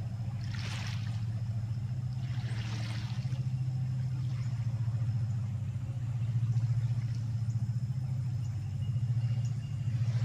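Steady low drone of an engine running, with a fast even pulse to it. Two brief rustles come in the first three seconds.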